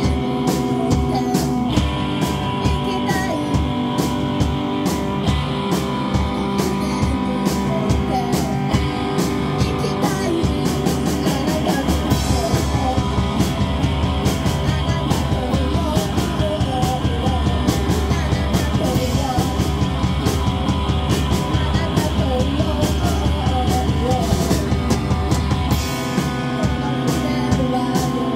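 A rock band playing live: electric guitar and a drum kit keeping a steady beat, with a woman singing the lead vocal.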